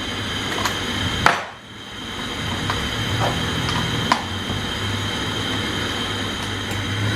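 A few short metallic clicks and knocks, the loudest a little over a second in, as the screen's mounting fittings are screwed together by hand. A steady low hum runs underneath.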